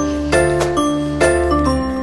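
Background music with a steady beat: bright pitched notes over a bass line, a new note about twice a second.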